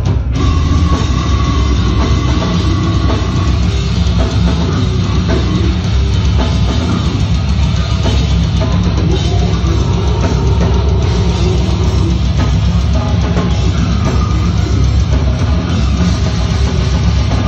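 Live death metal band playing loud and steady: heavily distorted electric guitars and bass over a drum kit.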